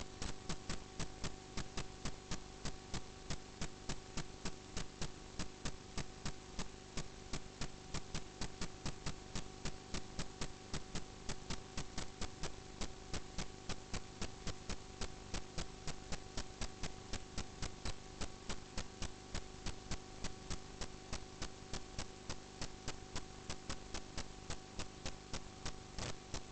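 Drain-inspection camera rig giving a steady electrical hum with an even ticking, about three ticks a second.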